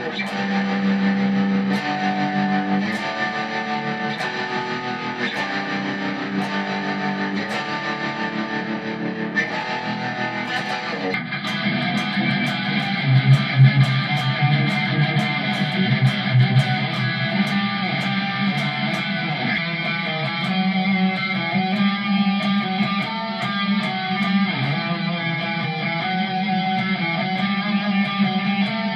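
Squier electric guitar played through M-Vave MK-300 multi-effects presets. Picked single notes first, then the tone changes about 11 seconds in to a fuller, sustained sound.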